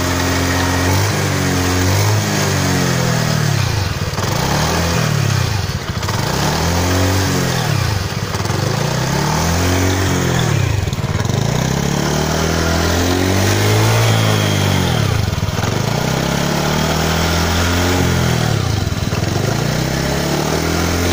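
Honda Vario 110 FI scooter's single-cylinder fuel-injected engine running steadily, heard from close by.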